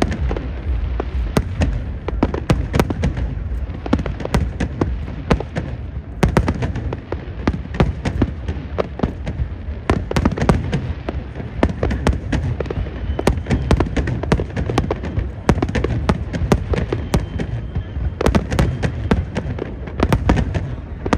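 Fireworks display: a dense, unbroken run of bangs and crackling shell bursts over a continuous low rumble.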